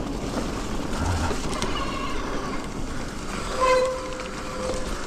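Steady riding noise from an electric mountain bike on a trail: rumble and rushing noise on the microphone. About three and a half seconds in, a short steady tone rises over it and holds for just over a second.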